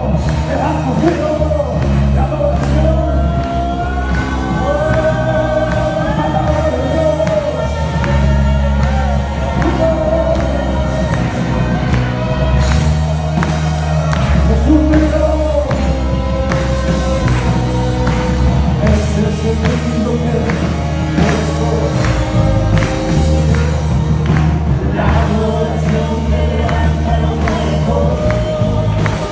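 Christian worship song: a group of voices sings a melody over a band with a steady bass line.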